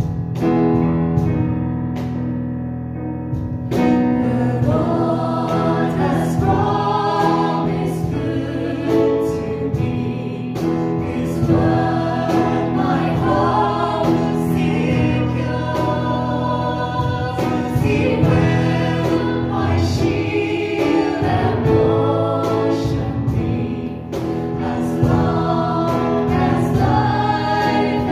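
Worship song played live: a Yamaha electric keyboard plays an introduction, then from about four seconds in a small group of singers (women's voices with a man's) joins in, singing together over the keyboard.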